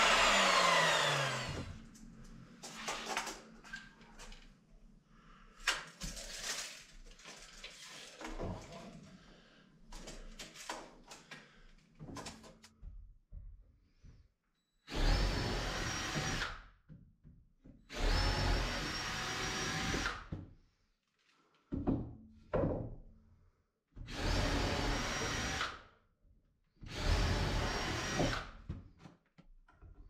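A sliding mitre saw's motor winding down with a falling whine after a cut, followed by knocks and clicks of timber being handled. Then a cordless drill-driver runs in five short bursts of one to two seconds each, driving screws into a timber frame.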